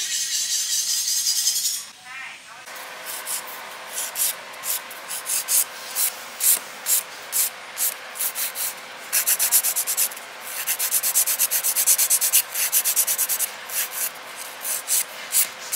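Nail file rasping across fingernails in short strokes. The strokes come singly at first, then in quick runs.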